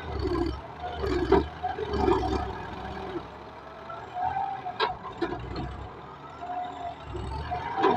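Tractor engine running under load while plowing, its sound swelling and easing in surges about once a second, with a few sharp metallic clicks about halfway through.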